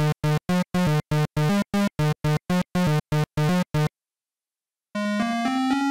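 8-bit video-game-style synthesizer music: a string of short, choppy low notes, about three a second, that stops about four seconds in. After a second of silence, a new chiptune melody starts near the end.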